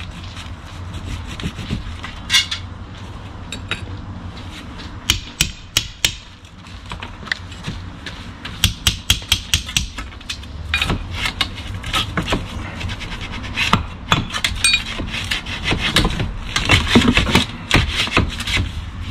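Stone and weak, crumbling mortar being broken and worked loose from a wall by hand: irregular knocks, scrapes and sharp clinks of stone and tools, bunched in quick runs about five and nine seconds in and again near the end.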